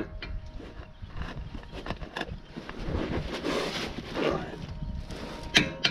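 Small metal clicks and handling noises as the outer spindle nut is worked by hand onto a 1995 Ford Bronco's front spindle, with the locking washer held in place. A short patch of hiss comes about three and a half seconds in.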